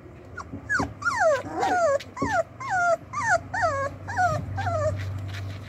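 Young Doberman puppy whimpering: a quick run of about a dozen high whines, each sliding down in pitch, about three a second, stopping near the end.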